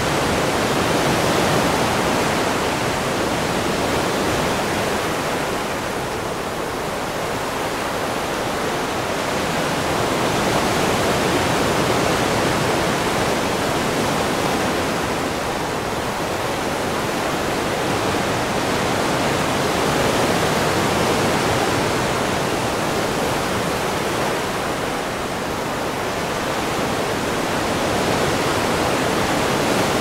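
Ocean surf: a continuous wash of waves that swells and eases every several seconds.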